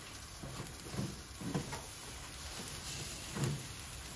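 Yakitori skewers sizzling on a commercial gas grill with a steady hiss, with a few soft low knocks.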